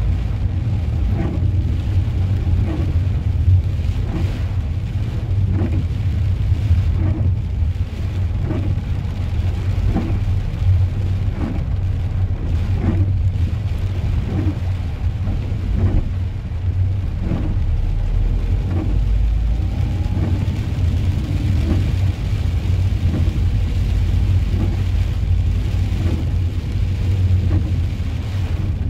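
Inside a car driving in the rain: a steady low rumble of engine and tyres on the wet road, rain on the windscreen, and the windscreen wipers sweeping about once a second.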